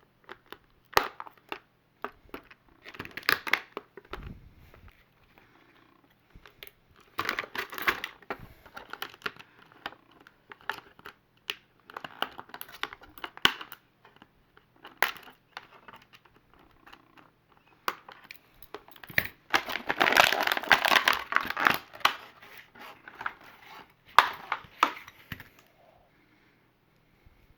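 Plastic toy packaging being crinkled and torn open by hand in irregular bursts, with sharp clicks here and there and a long stretch of steady crinkling about twenty seconds in.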